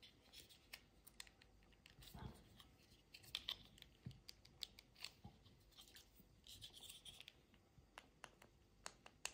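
Faint, scattered plastic clicks and scraping as fingers pry apart the two halves of a Lexus smart key fob's plastic casing.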